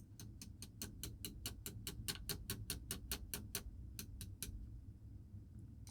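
Quick, even series of small clicks, about five a second, from tool work on a watch bracelet's pin-and-collar link. They stop about four and a half seconds in and start again near the end.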